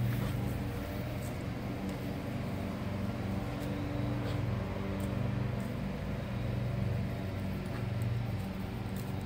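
A steady low engine-like hum that swells and eases in level every second or so.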